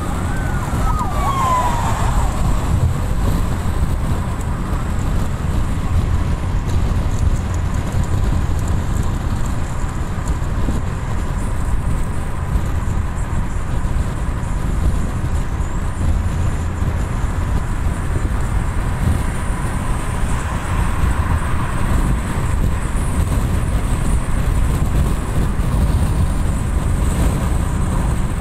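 Steady road and engine noise of a car cruising on a highway, heard from inside the moving car. About a second in there is a short tone that falls in pitch.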